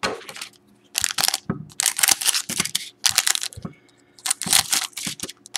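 Foil trading-card packs crinkling and rustling in bursts as they are picked up and handled, then scissors snipping through a foil pack wrapper near the end.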